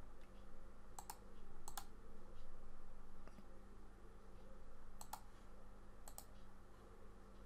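Computer mouse clicks, four quick double clicks spread a few seconds apart, over a steady low electrical hum.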